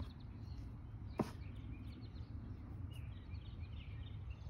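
Outdoor background noise with a low rumble and faint bird chirps, broken by one sharp click about a second in.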